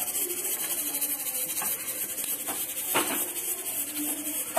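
A steel slotted spoon scraping and stirring through hot frying oil in an iron kadhai, over a steady hiss, with a light knock of the spoon on the pan about three seconds in.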